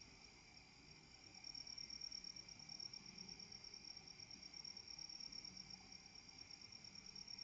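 Crickets trilling continuously, a faint, steady, high-pitched trill.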